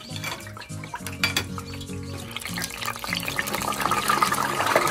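Frozen boiled pork hocks going into hot oil in an electric deep fryer, the oil sizzling and bubbling and getting louder from about three seconds in as the basket sinks. Background music plays throughout.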